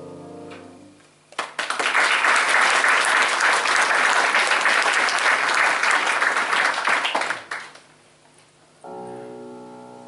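A grand piano's last chord dies away, then an audience applauds for about six seconds. Near the end the piano starts the next piece with soft held chords.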